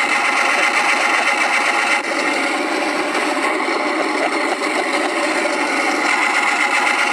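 RC model Focke-Wulf Fw 190's onboard sound system playing a steady, rattling simulated piston-engine sound.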